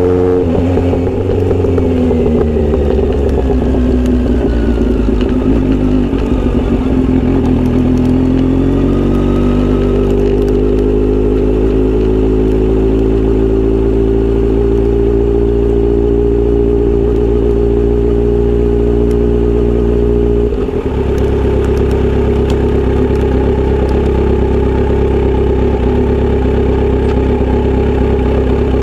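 Kawasaki Z900RS inline-four exhaust through a short steel aftermarket pipe while riding. The engine note drops in the first seconds, climbs again and holds a steady cruising note, then breaks off briefly about 20 seconds in and settles at a slightly different pitch.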